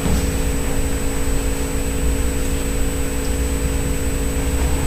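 Steady room hum and hiss with a low rumble and a constant mid-pitched tone, the continuous machine noise of the room between spoken passages.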